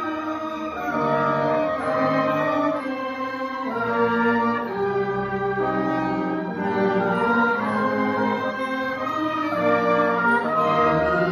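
An orchestra playing together, with oboe, trumpet and bowed strings. It plays held notes and chords that change about every second.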